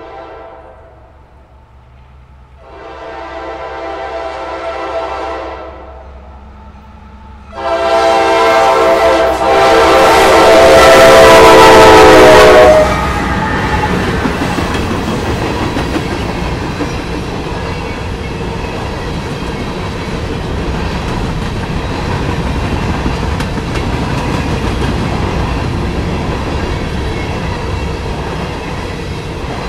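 Norfolk Southern diesel freight locomotive's multi-chime air horn: the tail of one blast, a second blast about three seconds in, then a long, louder blast from about seven and a half to thirteen seconds in. After it the freight train rolls past with a steady rumble and wheels clicking over the rail joints.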